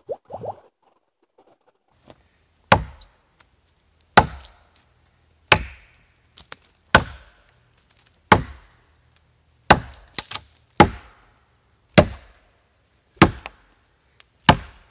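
Axe chopping into a thin fallen log: about ten sharp blows, roughly one every second and a half, each biting into the wood.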